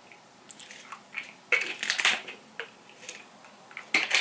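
Vitamin C tablets and their bottle being handled: a series of small clicks and rattles, busiest about two seconds in and again near the end.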